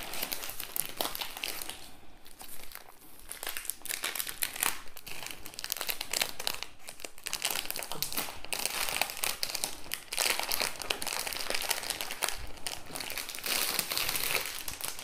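Wrapper around a rolled diamond painting canvas crinkling and rustling as hands slide it off and turn the roll, in irregular bursts with short lulls about two and ten seconds in.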